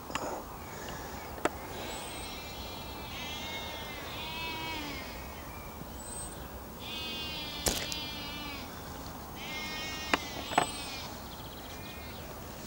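An animal calling in several wavering bouts a second or so long, a few sharp clicks among them.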